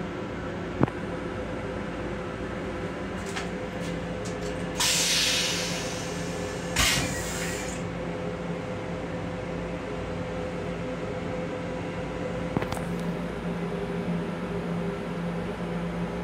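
Steady hum of an LIRR M7 electric railcar heard inside its small restroom. Two short bursts of hissing come about five and seven seconds in, the first fading away, and there are two sharp clicks, one near the start and one later on.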